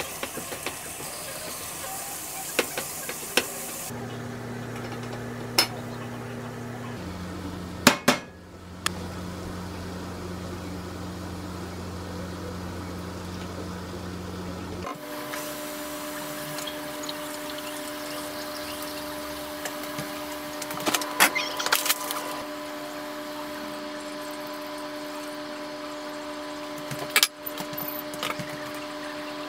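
Cooking in a stainless steel frying pan: leek stirred with a silicone spatula, then liquids poured in, with a steady hum underneath. Several sharp utensil knocks against the pan, loudest about eight seconds in and again near twenty-one and twenty-seven seconds.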